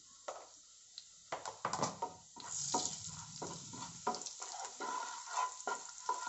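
Wooden spatula stirring masala powder into hot oil in a pan, with repeated scraping strokes over a steady sizzle of the spices frying (the tadka). The stirring starts about a second in.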